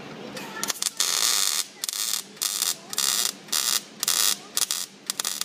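Wire-feed welder arc crackling in a series of short bursts, about eight, starting under a second in, as the new fender apron's sheet steel is welded to the body in short stitches.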